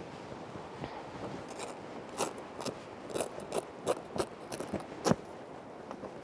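Camping gear being handled: an irregular run of crisp clicks, scrapes and rustles, the loudest about five seconds in, over a faint steady hiss of wind.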